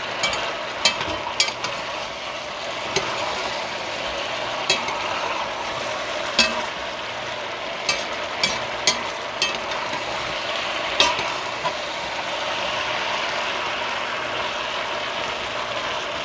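Pressure-cooked oxtail with onions and peppers sizzling in an enamelled cast-iron pot as a metal spoon stirs it, with about a dozen sharp clinks of the spoon against the pot at irregular moments.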